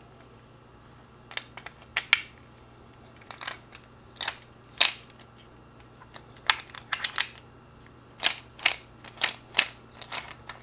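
Brass .45 ACP cartridges clicking against a plastic moon-clip loader tube and against each other as they are loaded by hand: a string of irregular sharp clicks.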